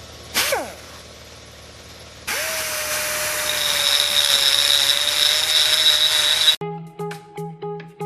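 A brief falling whine near the start, then a high-speed power tool runs at a steady pitch for about four seconds, grinding material off the steering hub flange so it clears the column trim. It cuts off abruptly and plucked guitar music starts.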